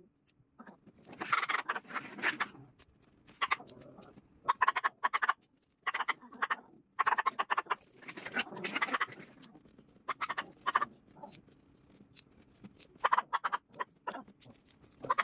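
Plastic letter beads clicking and rattling as fingers rummage through a compartment and drop them into a plastic organizer box, in short bursts of rapid clicking with pauses between.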